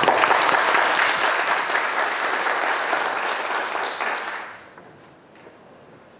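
Audience applause, loud at first and dying away about four and a half seconds in.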